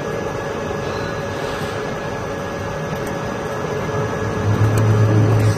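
ALCK6160 CNC lathe running, a steady machine hum with a faint high whine. A deeper, louder hum comes in about four and a half seconds in.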